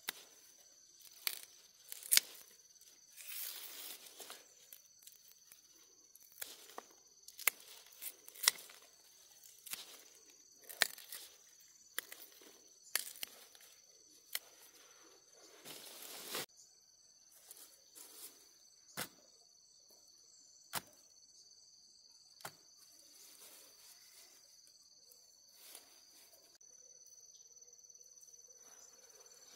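Irregular sharp snaps and short rustling, tearing bursts over a steady high-pitched drone of insects. The snaps thin out after about twenty seconds and the rustling stops near the end.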